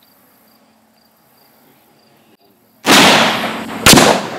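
.30-06 rifle fired once near the end: a very loud sharp shot with a long decaying tail, followed about a second later by a second sharp bang.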